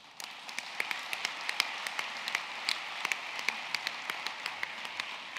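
Audience applauding: many people clapping at once, breaking out suddenly and holding steady.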